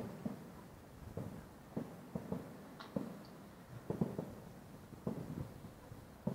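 Distant aerial fireworks: muffled low booms and pops arriving irregularly, about one a second, some in quick clusters.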